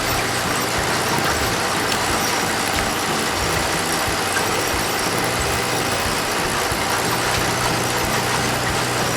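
A harvester's engine and machinery running steadily: a dense, even mechanical noise with a low hum underneath.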